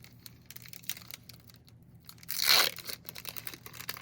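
Foil wrapper of a trading-card pack crinkling and tearing open, with one loud, short rip about two and a half seconds in, among faint rustles and clicks of cards being handled.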